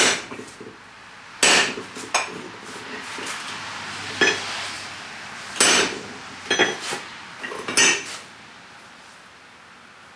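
Hammer blows on hot steel held in a 3/8-inch round fullering tool on an anvil, cutting a groove around a hammer head: about eight sharp metallic strikes at uneven intervals, some with a short ring, stopping about two seconds before the end.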